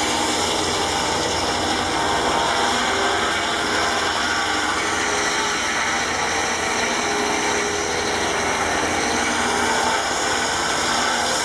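Tractor belt-driven sawmill blade cutting steadily through a log, with the tractor engine running under load beneath the sawing.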